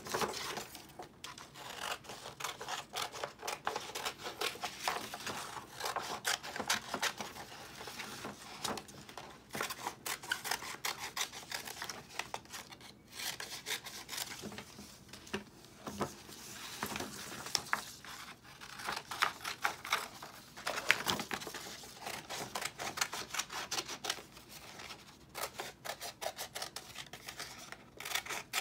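Scissors cutting through orange construction paper: runs of quick snips with the paper rustling and rubbing, broken by short pauses.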